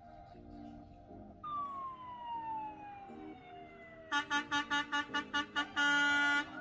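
A vehicle siren winding down in a falling wail, then a quick run of short horn-like blasts, about six a second, ending in one long steady blast near the end, over quiet background music.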